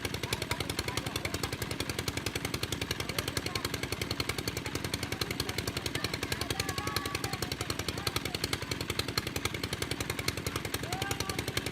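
Engine-driven water pump running steadily with a rapid, even chug, pumping water out of a fishing pond.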